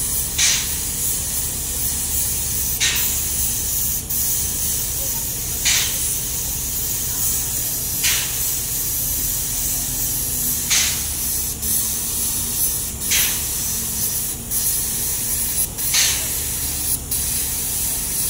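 Paint spray gun hissing steadily as it coats a steel ship hull, with a brief louder spurt about every two and a half seconds and a steady low hum underneath.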